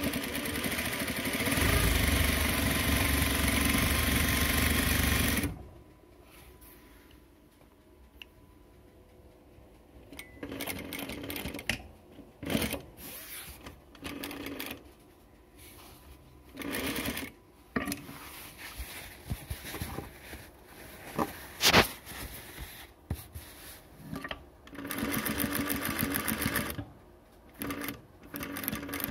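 Juki DDL-8700 industrial single-needle lockstitch sewing machine stitching fabric: one long run at speed for about five seconds, then a string of short start-stop bursts with a sharp click partway through.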